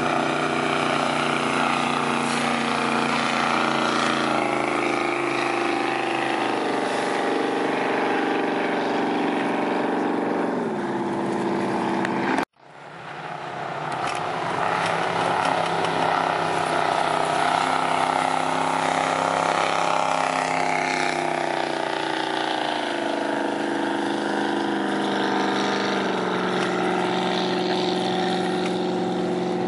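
An engine running steadily, its pitch shifting in steps and sliding down about ten seconds in. The sound cuts out abruptly about twelve seconds in and fades back up over a second or two.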